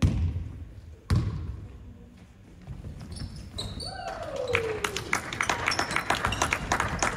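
Basketball bouncing on an indoor court in a large echoing hall: two loud bounces about a second apart, then from about four seconds in a busy run of quick taps and short sneaker squeaks.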